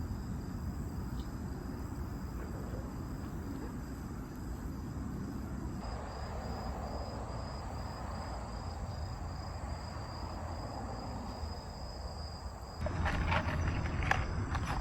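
Insects, crickets, trilling steadily in a high thin band over a low outdoor rumble. About thirteen seconds in it gets louder, and sharp snaps and crackles from the campfire come in.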